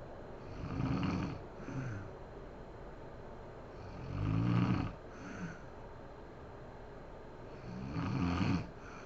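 A woman snoring in her sleep: three long pitched snores about four seconds apart. The first two are each followed by a shorter, softer snore.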